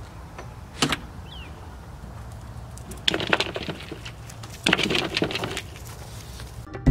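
A single sharp click about a second in, then two short bursts of clicking and rattling around three and five seconds in, over a low steady rumble.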